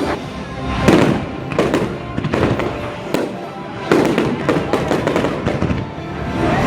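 Fireworks going off in a rapid series of sharp bangs and crackles over loud music. The biggest booms come about a second in and again about four seconds in.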